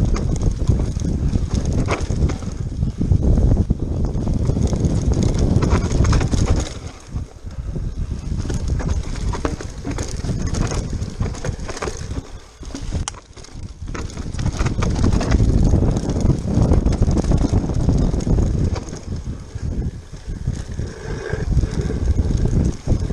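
Mountain bike ridden fast down a wet dirt forest trail: wind buffeting the action camera's microphone, with tyres on dirt and the rattle and clatter of the bike over bumps. The rush eases briefly about seven seconds in and again around thirteen seconds.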